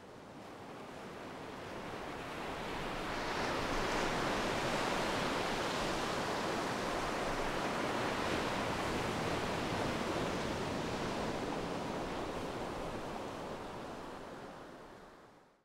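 Ocean surf, an even rushing wash of waves that fades in, swells about three seconds in, holds steady and fades out near the end.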